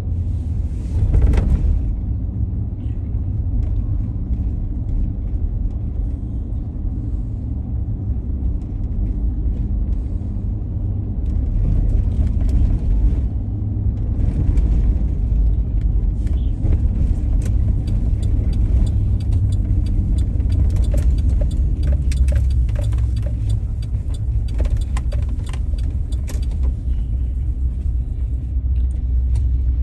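Road noise inside a car driving slowly on a residential street: a steady low rumble of engine and tyres, with scattered light clicks and rattles, more of them in the second half.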